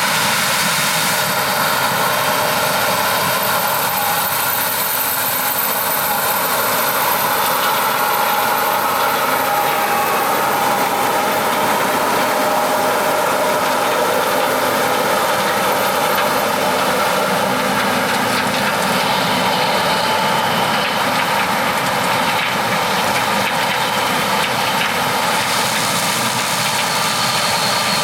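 Heavy diesel farm machinery, most likely the combine harvesting corn, running steadily with a constant engine hum and steady whining tones over it.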